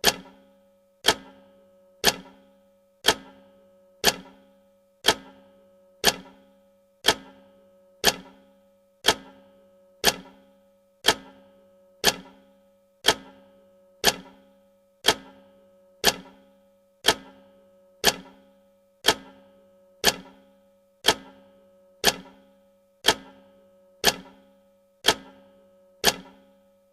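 Countdown timer tick sound: one sharp clock-like tick every second, evenly spaced, each with a short ringing tail.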